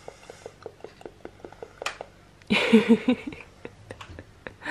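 A run of soft, rapid clicks, then about halfway through a woman's short playful 'blum-blum' vocalizing of four quick pulses.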